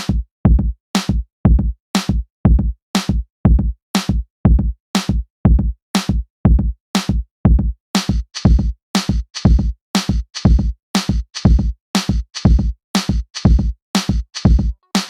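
Electronic background music with a steady drum-machine beat, about two kicks a second; a hissy cymbal layer comes in about eight seconds in.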